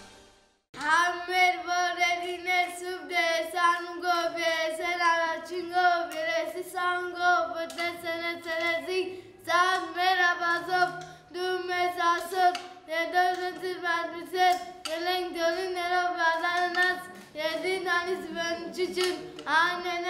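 A child singing alone in short phrases, with brief breaks between them and no instruments.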